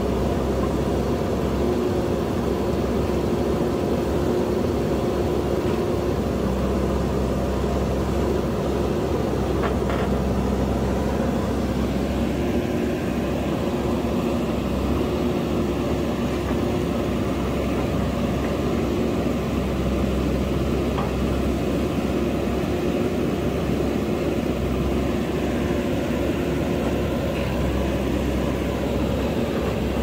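Diesel engine of a JCB backhoe loader running steadily, its pitch stepping up and down every few seconds as the load changes.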